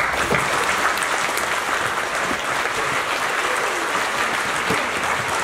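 Audience applause: many people clapping steadily, starting at once and holding an even level.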